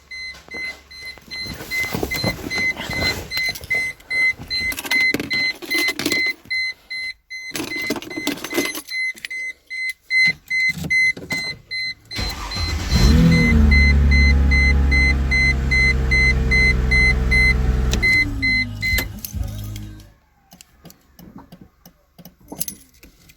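A 2006 Chrysler Crossfire tested with a newly programmed spare key: clicks and knocks from the car with a repeating warning beep. About halfway the 3.2-litre V6 starts abruptly and rises in pitch. It runs steadily for about five seconds, then winds down and stops when it is switched off.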